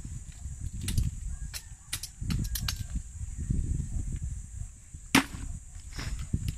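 Sharp knocks and cracks of a bolo knife striking sisi shells, a handful spread through, with one much louder crack about five seconds in, over low rumbling handling noise.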